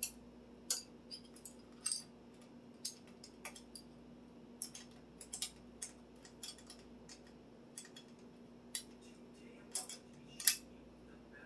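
Light metallic clicks and clinks at an irregular pace, from tools and bicycle-rack parts being handled during disassembly, with one louder clink near the end. A faint steady hum underneath.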